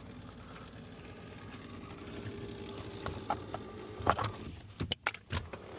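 A steady low hum, then, from about three seconds in, a series of sharp plastic clicks and snaps as a trim tool pries at the center console trim of a second-generation Dodge truck.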